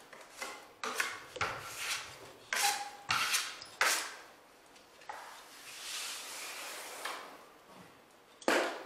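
Steel drywall knife scraping and spreading joint compound (mud) on drywall: a quick series of short scrapes, then a longer, softer stroke, and a sharp scrape near the end.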